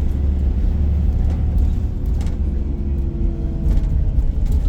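Iveco Crossway Line 12 bus running on the road, heard from inside the passenger cabin: a steady, deep engine and drivetrain drone with a faint steady whine and a few light clicks.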